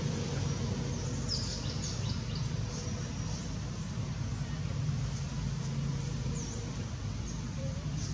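Outdoor background with a steady low rumble, over which small birds give a run of short high chirps about a second in and a few more near the end.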